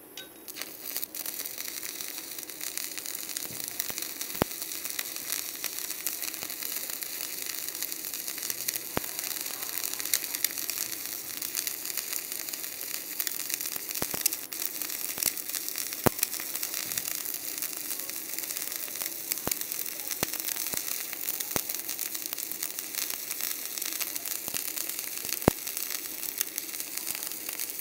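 Stick (MMA) welding arc on a 3.2 mm electrode at about 135 A: a steady crackling sizzle struck just after the start, with occasional sharp pops. The electrode is burning evenly now that its water-soaked coating has burned off.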